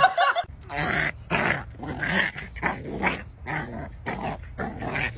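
A dog vocalizing in a run of short, pitched calls, about two a second.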